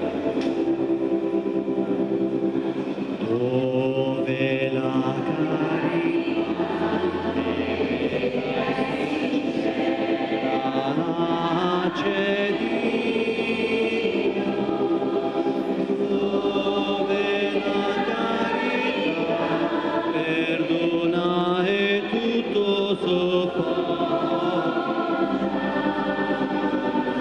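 A church choir singing a hymn, with long held notes underneath, while the altar is prepared at the offertory.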